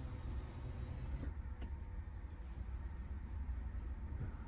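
Steady low road and tyre rumble inside the cabin of a moving Nissan Ariya electric SUV, with no motor noise and its pedestrian-warning noise generator not heard. A faint click comes about a second and a half in.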